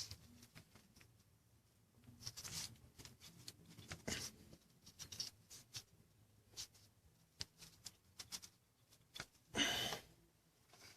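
Faint scattered clicks, taps and rustling as tools and timing-chain parts are handled in the engine bay, with a louder brief scrape or rustle near the end.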